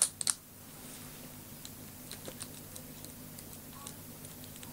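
Two or three sharp clicks at the start, then scattered faint ticks and taps: small plastic RC car parts being handled as a drive axle is fitted back in, over a steady low hum.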